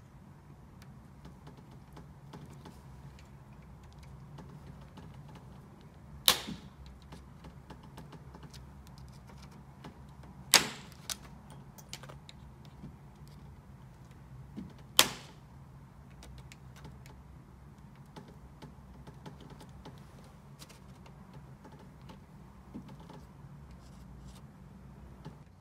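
Staples being pried out of a wooden canvas stretcher bar with a small flathead screwdriver: light scraping and ticking, with three sharp snaps as staples pop free, about six, ten and a half, and fifteen seconds in.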